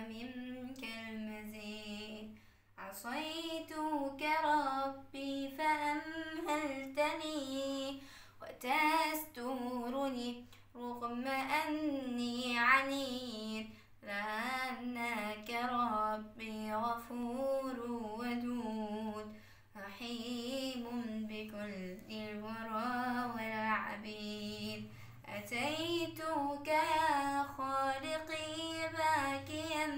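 A young girl singing an Islamic nasheed solo and unaccompanied, in long ornamented phrases broken by short pauses every few seconds.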